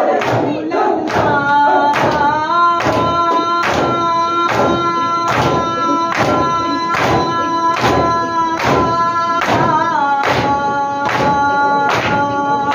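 Mourners beating their chests in unison (matam), about three sharp slaps every two seconds, over a long, steady sung note that wavers briefly near the end.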